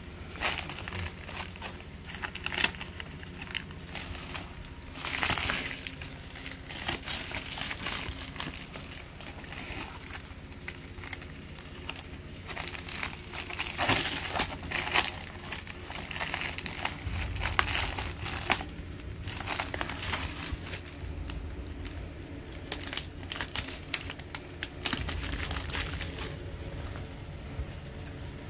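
Plastic padded mailer being handled and squeezed, with irregular crinkling and rustling that comes and goes.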